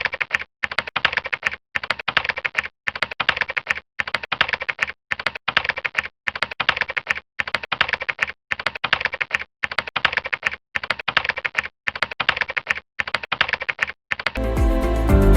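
Rapid keyboard typing in bursts of about a second each, separated by brief pauses. Music comes in near the end.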